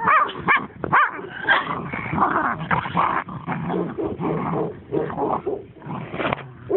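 Small dog barking and yipping: several short, high calls in the first second, then a denser, rougher run of barking.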